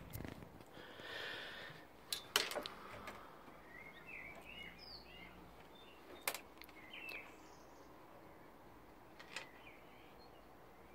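Faint background hiss with birds chirping now and then and a few sharp knocks, the loudest a quick cluster about two seconds in.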